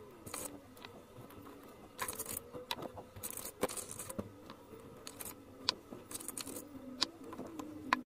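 Scattered light clicks and taps of wooden popsicle sticks being handled and pressed into place on a glued craft roof, with a few soft scrapes.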